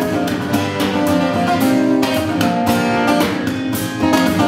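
Guitar music with strummed chords, no singing: an instrumental passage between sung lines.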